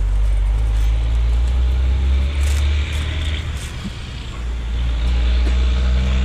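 Wind buffeting an outdoor camera microphone: a loud, deep rumble that rises and falls, easing off about four seconds in before building again. A few faint clicks sound a little past halfway.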